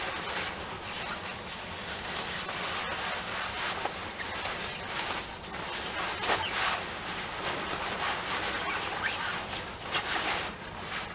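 Stiff taffeta overskirt rustling and swishing as it is wrapped around the hips and pulled into place, with several louder swishes among the steady rustle.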